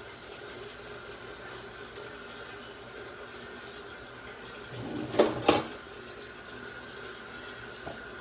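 A steady hum and hiss with faint constant tones, broken about five seconds in by two sharp knocks close together.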